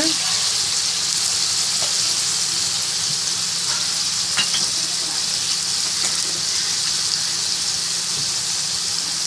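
Chicken pieces in a ginger-garlic spice paste with a little water sizzling steadily in hot mustard oil in a pan.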